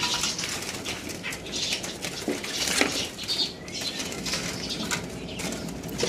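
Juvenile green leafbird (cucak hijau) fluttering and flapping its wings inside a bamboo cage while a hand reaches in to catch it, with irregular rustling and scratching against the bars.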